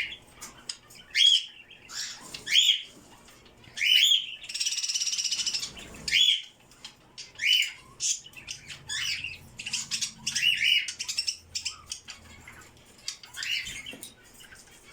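Budgerigars chirping: a string of short rising chirps, with a buzzy chattering call lasting about a second and a half near the middle.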